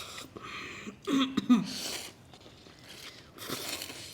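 Close-up mukbang eating: crunchy food being bitten and chewed near the microphone, with a short pitched vocal sound, like a hum, about a second in.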